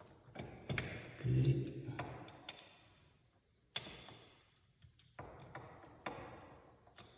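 Sharp metallic clicks and taps, several spread irregularly with a short ring after some, as a clamping tool is worked against a door hinge to press its pin in.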